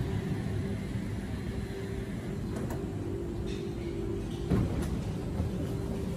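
Electric intercity train standing at a platform with its doors open, its equipment humming steadily with a held tone, and a couple of short knocks about four and a half seconds in.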